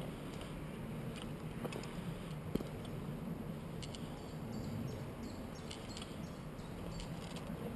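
Movement through woodland undergrowth: steady rustling with scattered small twig snaps and crackles, and one sharper click about two and a half seconds in.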